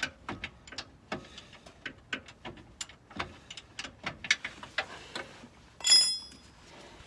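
Irregular sharp metallic clicks, several a second, from hand tools working on car suspension parts, then one louder clank that rings briefly about six seconds in.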